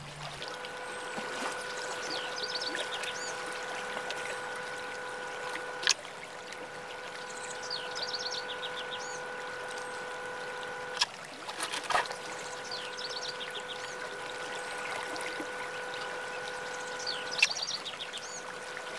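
Flowing water with birds chirping over it, and a chord of steady tones held about five seconds at a time before breaking off and starting again. Four sharp clicks stand out above it.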